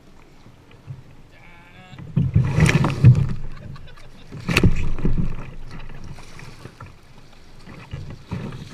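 Kayak on the water: two loud, rough surges of splashing and knocking noise about two and four and a half seconds in. They are preceded by a brief pitched bleat-like sound.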